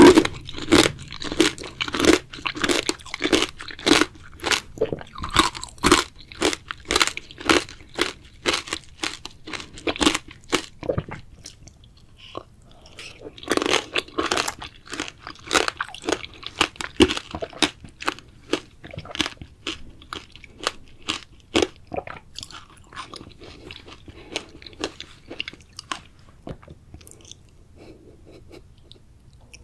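Strawberries being bitten and chewed close to the microphone: a fast run of crunchy, wet chewing sounds, with a short pause about twelve seconds in, then thinning out and growing fainter over the last several seconds.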